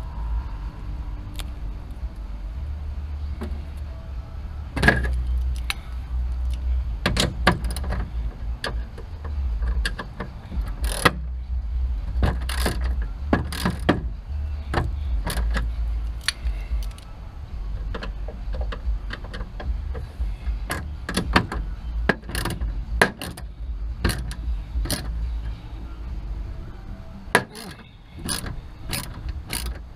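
Irregular metal clicks and clinks of a socket wrench working rusted screws and washers loose, over a steady low rumble of wind on the microphone.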